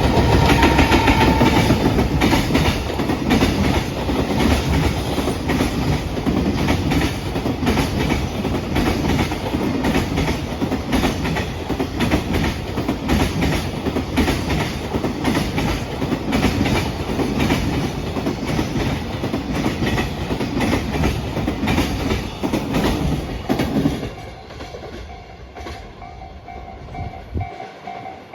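Container freight wagons of a JR Freight train rolling past a level crossing: a steady heavy rumble with rapid wheel clatter over the rail joints. The clatter stops abruptly about 24 seconds in as the last wagon clears. Afterwards the crossing's warning bell is left ringing in a repeating pulse.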